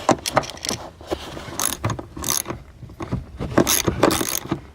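Hand ratchet wrench clicking in irregular runs of quick strokes, undoing a car seat's mounting bolt.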